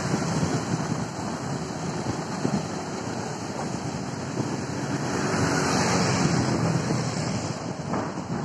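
Wind buffeting the microphone of a camera carried on a moving bicycle: a steady rushing noise that swells a little about halfway through, with road noise underneath.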